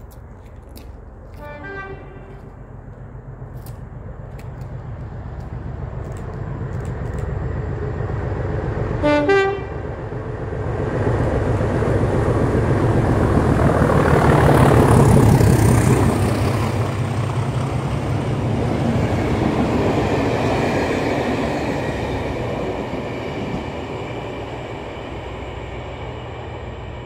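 Class 37 diesel locomotive with its English Electric V12 engine, approaching at speed with a test train. It sounds its horn twice, briefly: faintly about two seconds in and much louder about nine seconds in. Then its engine rumbles past, loudest around fifteen seconds in, and fades as the coaches run by.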